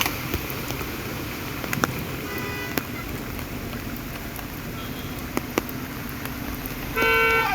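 Steady heavy rain with stranded traffic. A car horn sounds faintly about two and a half seconds in, and a louder horn blast comes near the end.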